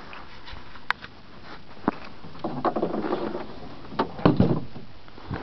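Snowmobile hood being lowered and closed: a handful of sharp clicks and knocks with some handling rustle, the heaviest knocks about four seconds in.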